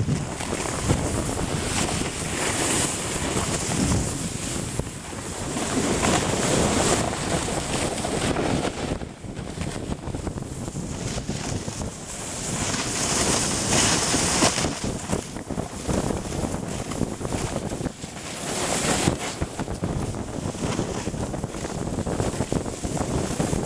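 Wind buffeting the microphone of a camera moving down a snow slope, mixed with the hiss and scrape of sliding over packed snow. The noise swells and fades in long waves.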